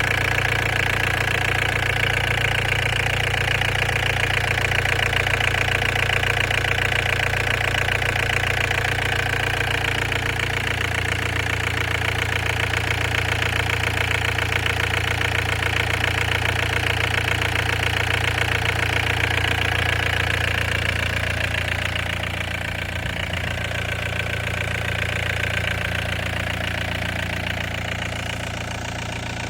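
Volvo ECR58 midi excavator's diesel engine running steadily, with a low hum under a high whine; it drops a little in level about twenty seconds in.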